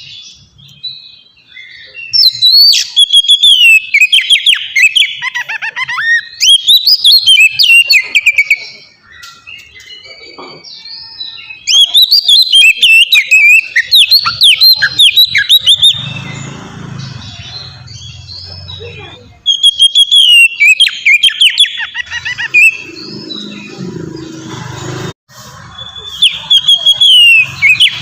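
Oriental magpie-robin (kacer) singing loudly: rapid runs of sweeping whistles and chattering notes, delivered in several bursts of a few seconds each with short pauses between them.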